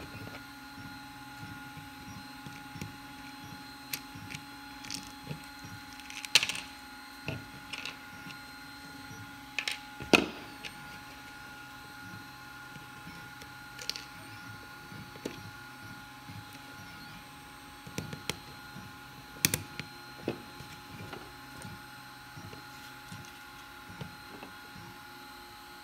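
Scattered small clicks and knocks of a plastic pen casing and its parts being handled on a tabletop, a few of them sharper taps, over a steady faint hum.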